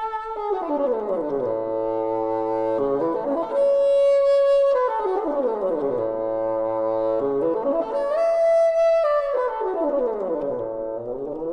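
Background music: a brass-like instrument tone that slides slowly down in pitch and back up again, over and over, with brighter held notes between the slides.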